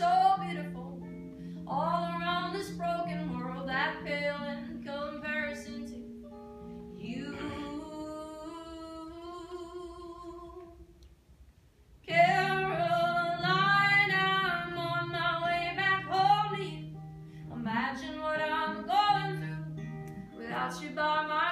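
A woman singing to her own acoustic guitar. Her voice softens into long held notes and nearly fades out about halfway through, then comes back strongly.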